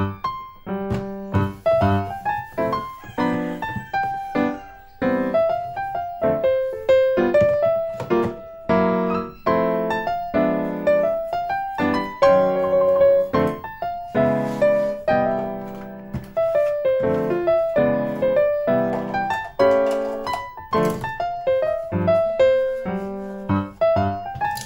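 Instrumental background music: a piano playing a gentle melody over chords, with no singing.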